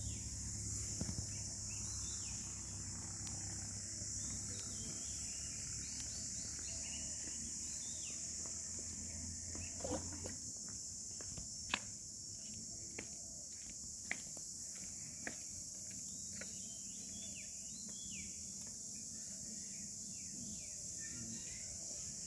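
Insects droning steadily in a high-pitched chorus, with short bird chirps over it and a few sharp clicks near the middle. A low rumble underneath stops about ten seconds in.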